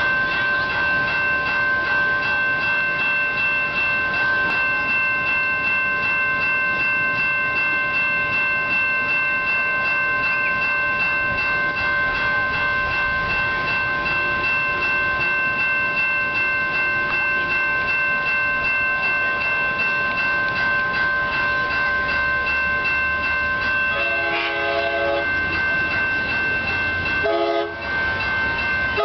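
Railroad grade-crossing warning bell ringing steadily. Near the end the approaching Amtrak Pacific Surfliner sounds its multi-note horn twice, a longer blast and then a short one, over a rising rumble.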